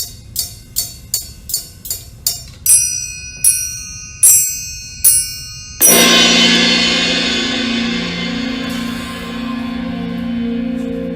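Percussion music. About seven quick mallet-struck notes lead into five slower, louder bell-like strikes. About six seconds in, a cymbal crash sets off a low, slowly pulsing drone.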